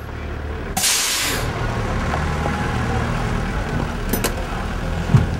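A heavy vehicle's engine idling with a steady low rumble, and a short, sharp hiss of air brakes releasing about a second in; a single knock near the end.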